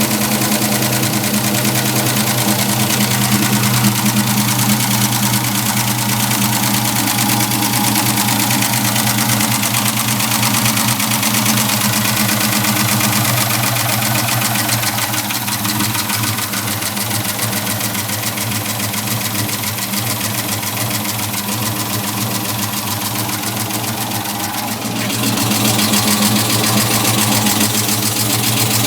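Engine idling steadily with a fast, even ticking on top, a clicking noise of unknown cause. It gets a little quieter in the second half, then louder again suddenly near the end.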